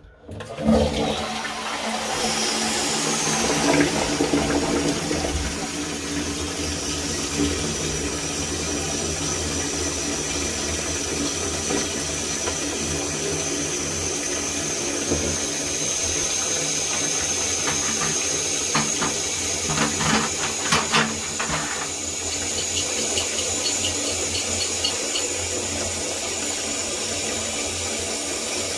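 Toilet cistern filling through its ball valve: a steady rush of water that starts suddenly, with a high whistle from the inlet and a few light knocks about twenty seconds in.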